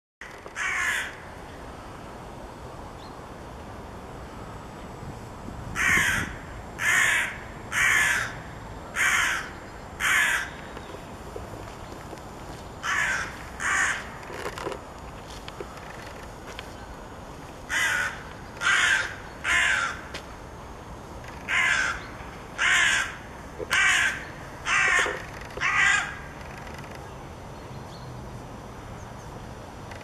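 A crow calling: a series of harsh caws, about one a second, in runs of three to five with pauses of a few seconds between runs.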